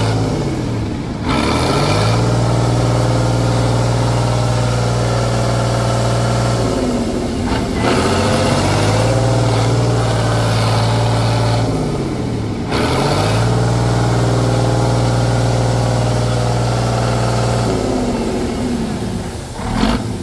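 Praga 6x6 trial truck's engine held at high revs as the truck works through mud. The pitch dips and climbs back about four times, as the revs fall and pick up again.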